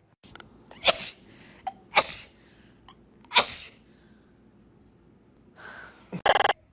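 A person sneezing several times in a row: three sharp sneezes roughly a second apart, then after a pause a loud, voiced sneeze near the end.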